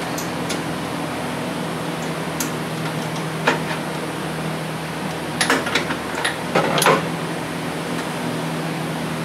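Short clicks and clinks of a socket wrench with an extension working a spark plug loose, one about three and a half seconds in and a cluster from about five to seven seconds, over a steady background hum.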